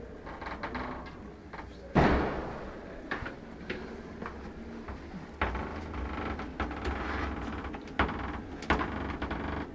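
A door bangs loudly about two seconds in, followed by shuffling and handling noise with a few sharper knocks.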